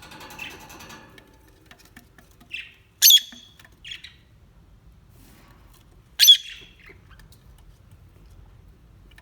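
A bird calling: two loud, short, harsh squawks about three seconds apart, with a couple of softer chirps between them.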